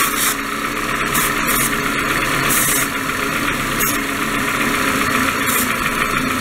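Aerosol brake cleaner hissing from its straw in several short bursts, sprayed around a suspected leaking intake manifold gasket as a vacuum-leak test, over the steady idle of a Toyota 2.4-litre four-cylinder engine.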